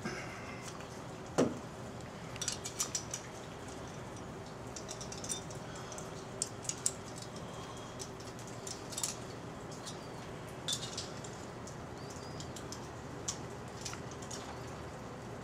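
Light metallic clicks and clinks in short clusters, the sound of small metal objects being handled, over a steady low hum. One sharper knock about a second and a half in is the loudest sound.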